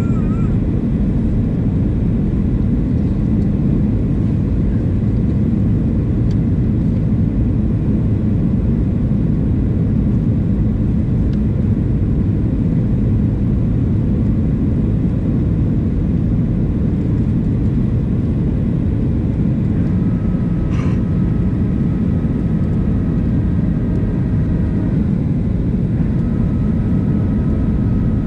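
Cabin noise inside a Boeing 737-700 with CFM56-7B engines: a steady, loud, low rumble of engine and airflow. About two-thirds of the way through, faint steady whining tones join in.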